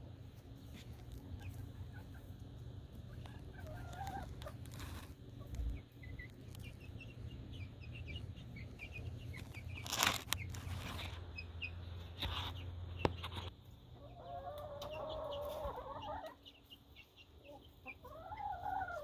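Young chicks peeping in a brooder over a steady low hum, with a few knocks around the middle. After about 13 seconds the hum stops and adult hens cluck, with two longer drawn-out calls.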